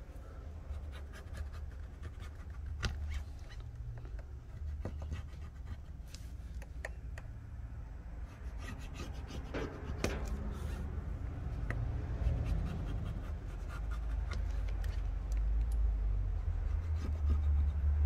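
Plastic spudger rubbing and scraping along adhesive strips on a phone's frame, pressing them down, with scattered light clicks. A low rumble grows louder toward the end.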